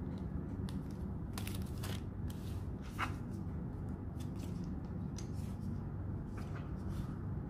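Clear plastic sticker packets crinkling and rustling as they are handled, in short scattered crackles, the sharpest about three seconds in, over a steady low hum.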